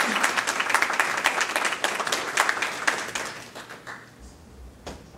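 Audience applauding: dense clapping that thins and dies away about four seconds in, followed by a single knock near the end.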